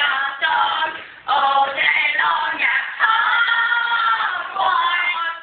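Young female voices singing together, with a few long held notes in the middle and a short break about a second in.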